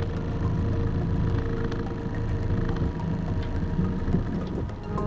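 Honda outboard motor idling with a steady low hum.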